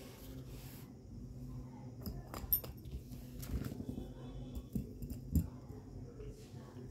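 Light clicks and rustles of a paper slip and a pen being handled, with two sharper clicks about two and a half and five and a half seconds in, over a steady low hum.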